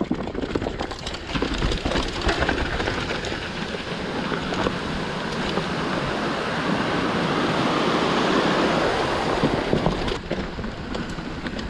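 Mountain bike descending a rough downhill trail: tyres rolling over dirt and rocks with many small rattles and knocks from the bike, under a steady rush of wind on the camera microphone.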